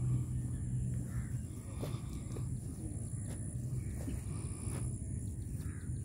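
Wind rumbling on the microphone beside open water, with a few faint bird calls.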